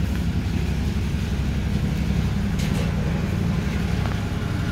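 Yamaha XJ600's air-cooled inline-four engine idling steadily while still cold.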